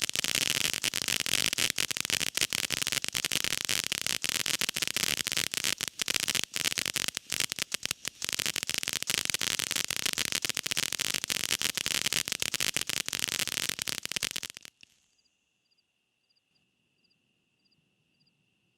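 Ninja fountain firework burning with a dense crackling hiss full of sharp pops, cutting out suddenly near the end. Afterwards only faint insect chirping remains: a thin steady high tone with soft ticks about twice a second.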